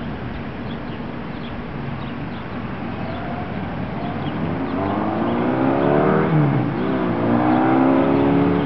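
Motorcycle engine of a 1979 Kawasaki KZ1000 LTD, an air-cooled inline-four breathing through a 1970s 2-into-1 exhaust, growing louder through the second half as it revs up with a rising pitch. About two-thirds in, the pitch drops briefly and then climbs again.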